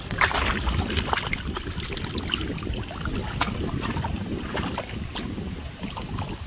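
River water splashing and sloshing in irregular bursts as a freshly found agate is rinsed in the shallows, with wind buffeting the microphone.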